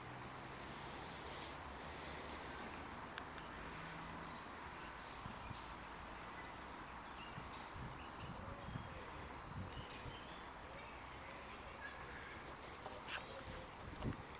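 Quiet outdoor background with a short, high chirp repeating about once a second. Near the end come a flurry of wing flaps and light scrabbling as a young crow lands on a hand.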